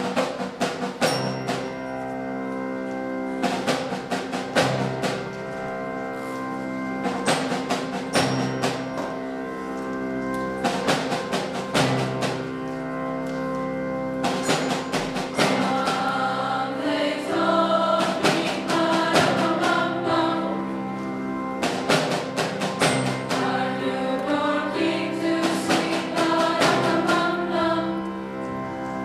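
Girls' choir singing with grand piano accompaniment and drum kit hits. The voices hold long chords at first, then move into a busier melody from about halfway.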